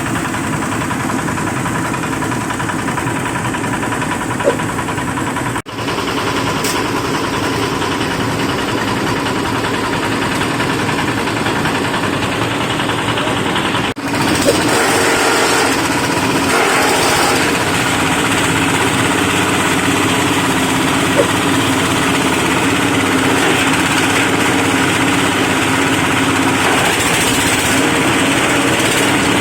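Veneer waste shredding machine running with a steady, loud mechanical drone. The sound drops out briefly twice, and after the second break it runs a little louder and hissier.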